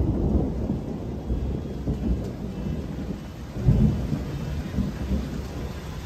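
Thunder rumbling low, with a louder roll about four seconds in, then dying away toward the end.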